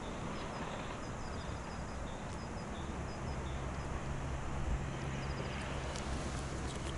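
Open-air ambience on a frozen lake: a steady noise of wind and surroundings, with faint high bird chirps in short groups. The low hum of a distant engine sets in about three seconds in.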